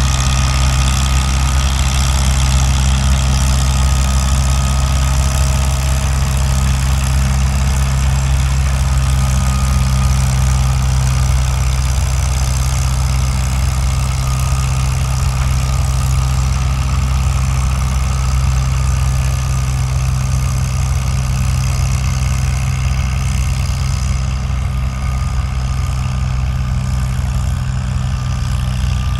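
Farm tractor engine running steadily under load as it pulls a weight-transfer sled down the track at a slow, even speed, its pitch holding level with no revving.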